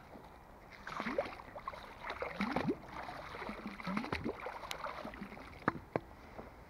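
Wet gurgling and squelching as a mud-filled corrugated hose fished from the canal is prodded and shifted, water and sludge moving inside it. Near the end come two sharp clicks.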